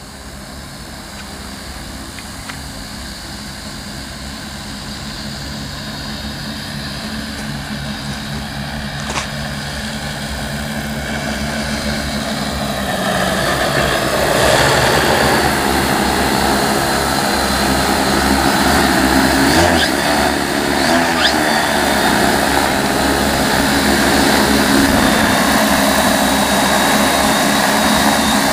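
Large multirotor crop-spraying drone with 75 cm propellers in flight, a steady rotor hum that grows louder over about the first half as the drone approaches, then holds steady close by.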